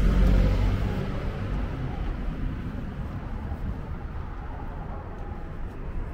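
A London black cab's engine passing close by on the road and fading away over the first couple of seconds, then a steady low rumble of traffic.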